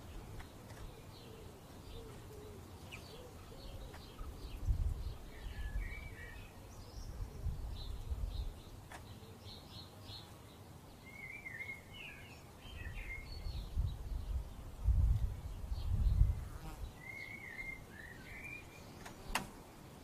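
Small songbirds calling with short chirps and warbling phrases several times, over bursts of low rumbling wind noise on the microphone that are loudest about three-quarters of the way through. A single sharp click comes near the end.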